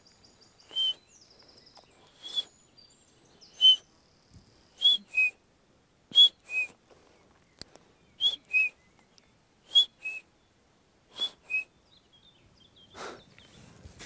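A man whistling short, high notes through pursed lips in imitation of a bird's call: three single notes, then falling two-note pairs repeated every second and a half or so.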